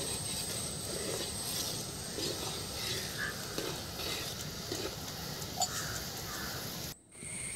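Steel spoon stirring sugar syrup in an aluminium pot, soft regular swishes of liquid as the sugar dissolves into syrup, over a steady background hiss.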